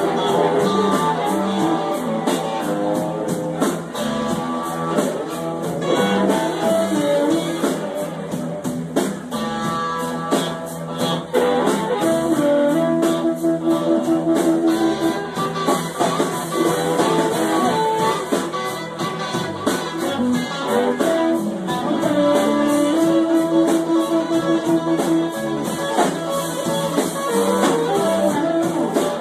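Blues band playing, with guitar lines carrying the melody over a steady drum beat.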